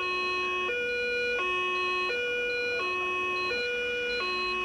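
Fire truck's two-tone siren, alternating steadily between a high and a low note about every three-quarters of a second.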